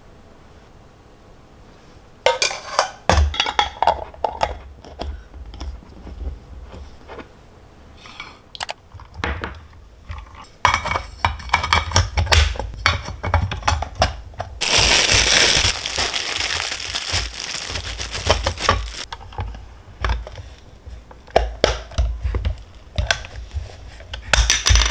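Close kitchen handling sounds: plastic packaging crinkling and rustling, with a long stretch of dense crinkling midway, among sharp clicks and knocks as a waffle maker is opened and its lid pressed shut on a bagel.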